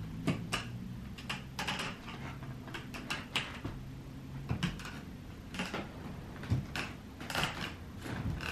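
Aluminium crutches tapping and clicking on a wooden parquet floor during a slow, halting walk, with irregular taps a few times a second over a low steady hum.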